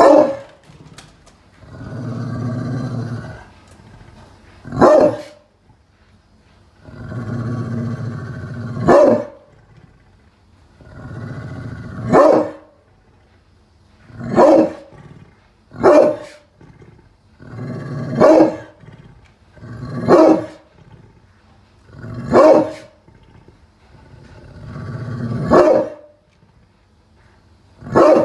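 Pit bull barking, about ten sharp barks a few seconds apart. Several of the barks are led in by a low growl lasting a second or two.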